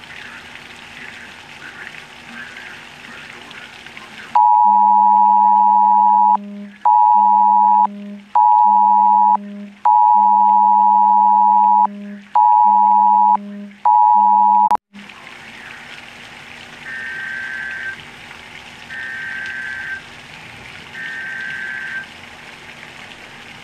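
Heavy rain falling steadily, then a phone's Wireless Emergency Alert attention tone sounds very loud in its two-part cadence (about 2 s on, then two 1 s blasts, played twice) while the rain sound drops out entirely. After it the rain returns, with three fainter high beeps about 2 s apart.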